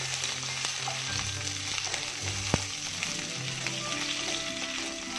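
Potato and brinjal chunks sizzling as they fry in hot mustard oil in a wok, stirred with a wooden spatula that knocks sharply against the pan once about halfway.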